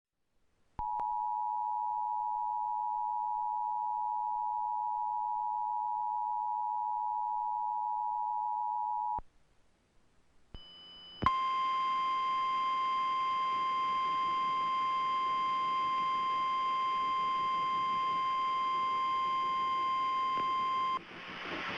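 Emergency Alert System two-tone attention signal, a steady dual-pitch tone held for about eight seconds and marking the start of a broadcast emergency alert. After a short gap and a brief higher beep, NOAA Weather Radio's single-pitch warning alarm tone sounds, slightly higher and buzzier, over radio static for about ten seconds, then cuts off.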